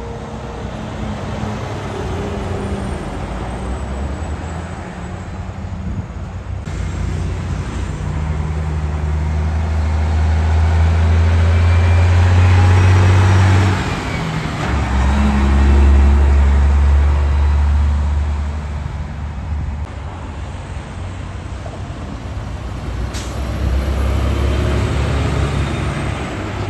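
Diesel semi trucks passing at close range. A Peterbilt tractor's engine climbs in pitch under load, dips briefly for a gear shift about halfway through, then pulls again, and another truck, a Kenworth, comes by near the end.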